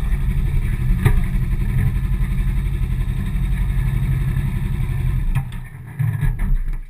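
Suzuki GS 500 E's air-cooled parallel-twin engine running as the motorcycle rides along, heard from a camera mounted on the bike, with a single click about a second in. The engine sound drops away about five seconds in, picks up briefly for a moment, then fades again near the end.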